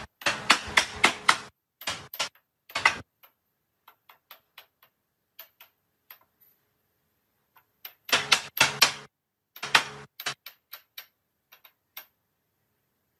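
A block of wood struck against the joints of a hardwood sofa frame to knock them together: a quick flurry of sharp knocks at the start, another flurry about eight seconds in, and light taps between.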